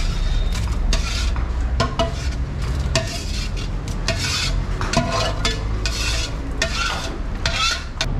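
Long-handled metal ladle scraping around the inside of a metal cooking pot to scoop out boiled beef, in repeated rasping strokes roughly once a second with short metallic clinks.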